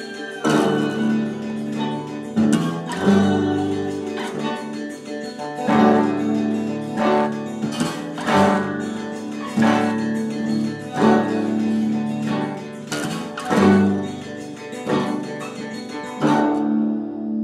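Instrumental background music on a plucked guitar, with sharply accented chords about every second or so over ringing notes.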